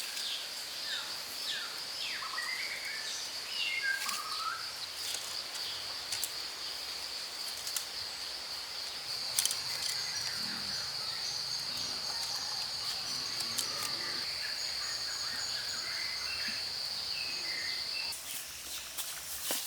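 Outdoor ambience: a steady high-pitched buzz, like an insect drone, that stops shortly before the end, with scattered bird chirps and a few sharp clicks.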